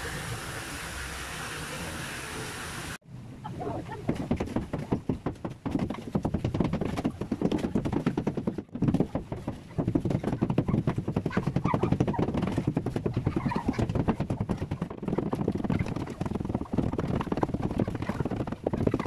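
Hammer blows chipping old concrete and render off a hollow-block wall, a fast, irregular run of knocks with rubble clattering down. It starts after a hard cut from about three seconds of steady hiss.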